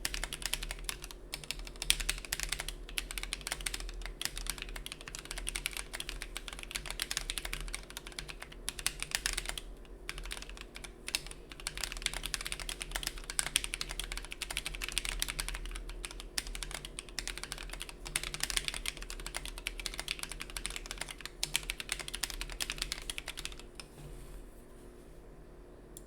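Typing on a Mechwild Mercutio 40% mechanical keyboard with lubed Gateron Yellow linear switches, SA-profile keycaps and an undampened FR4 plate: fast, continuous keystrokes with a couple of brief pauses, stopping shortly before the end.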